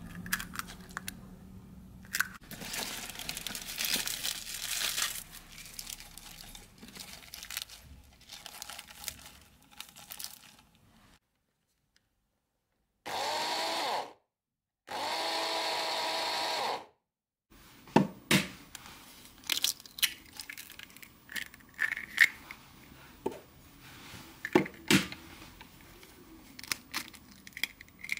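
Fresh spinach leaves rustling and crinkling as they are pressed down into the plastic bowl of an electric mini chopper. Then the chopper's motor runs in two short pulses of about two seconds each, spinning up at the start of each, followed by scattered sharp clicks and taps of the plastic bowl and lid being handled.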